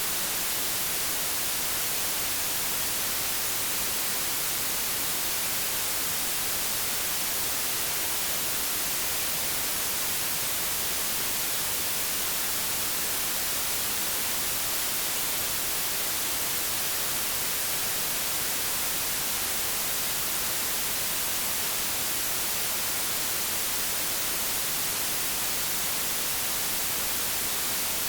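Generated white noise: a steady, even hiss across the whole range of pitch, unchanging throughout.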